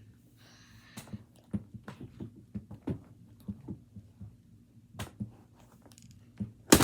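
Trading cards in hard card holders being handled and set back into a card box's briefcase, with scattered light taps and clicks and a brief sliding scrape about half a second in. One loud sharp click comes near the end.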